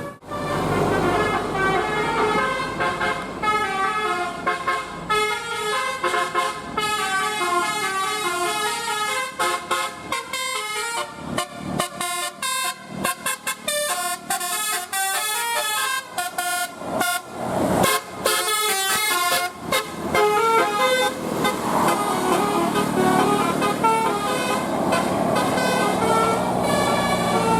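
Bus telolet horn, a multi-tone musical horn, playing a fast tune of short stepped notes. There is a choppy, stuttering run of notes in the middle and a brief swooping slide later on.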